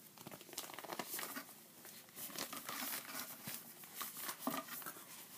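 Shiny black plastic recyclable tote bag crinkling in irregular bursts as it is handled and folded up by hand.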